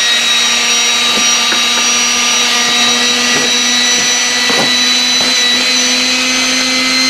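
The SeatZac self-inflating chair's built-in electric air compressor runs steadily as it pumps the chair full of air. Its motor whine creeps slightly higher in pitch as the chair fills.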